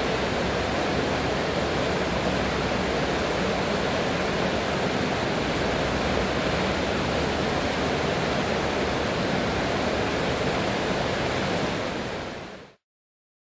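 Steady rush of flowing water, like a waterfall or fast stream, which fades out quickly near the end into silence.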